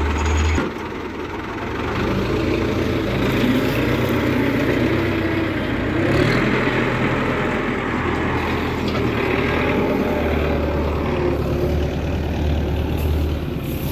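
Belarus tractor's diesel engine running steadily under load, driving a wheat thresher through its rear PTO shaft.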